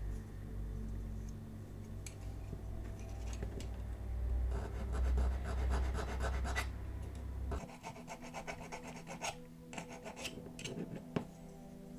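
Hand filing and sanding of a diecast metal model car body, a series of short scraping strokes that takes away hardened superglue-and-baking-soda filler. A steady low hum runs underneath and stops abruptly about two-thirds of the way in.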